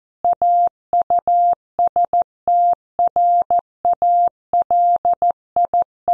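Computer-generated Morse code: a single steady tone keyed on and off in dots and dashes at about 14 words per minute, spelling out a news headline.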